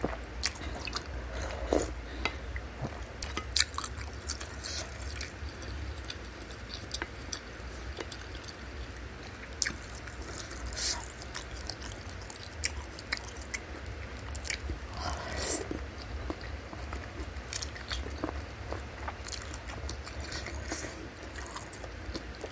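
Close-miked eating of bakso meatball soup: wet chewing of meatballs, beef tendon, beef fat and corn vermicelli, with sips of broth from a spoon and many small mouth clicks.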